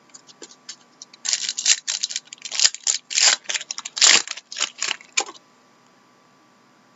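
Trading cards and their packaging being handled at close range: a run of crisp rustles and clicks for about four seconds, stopping suddenly a little after five seconds in.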